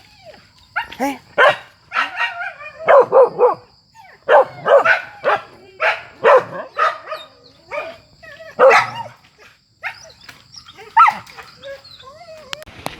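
Several village dogs barking and yelping in irregular, loud bursts, in quick clusters at times, as they hold a wild boar at bay. A steady high-pitched buzz runs underneath.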